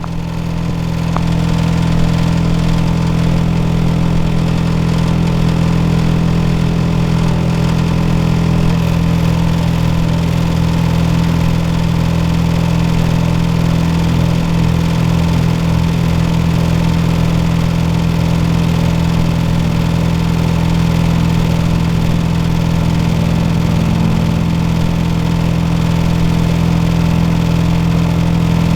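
Air-conditioner outdoor unit running with a loud, steady low drone, like a generator; the uploader takes the noise for a fault in the unit.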